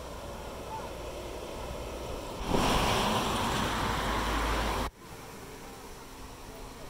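Strong windstorm gusting, with a loud blast of wind buffeting the microphone from about two and a half seconds in that cuts off abruptly near five seconds.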